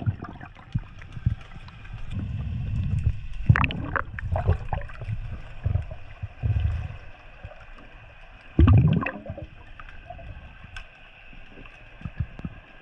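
Muffled underwater sound from a diver's camera: a low rush of water moving past the housing as the diver swims. Two louder bubbling, crackling surges come about three seconds in and again about eight and a half seconds in.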